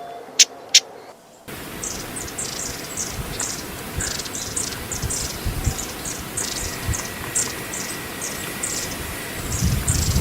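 Wild small songbirds giving short, high, thin calls, several a second, in a hissy outdoor field recording. Two sharp, loud calls come at the very start, before a brief gap, and a low rumble rises near the end.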